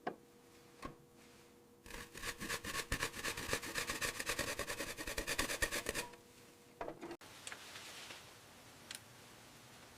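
Hand tool working the last screw out of an old radio: a fast, even scratching rasp, about ten strokes a second, lasting about four seconds, followed by a few soft clicks.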